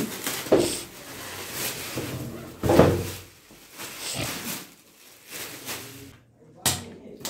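Plastic packing wrap crinkling and rustling as it is pulled off a taped cardboard parcel, in several separate bursts, with a short sharp knock near the end.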